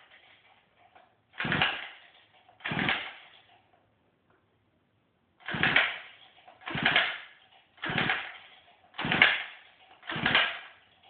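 Pocket bike's small two-stroke engine being pull-started over and over, seven quick cord pulls in two runs, each a brief whirring turn-over; it never catches, as it won't start.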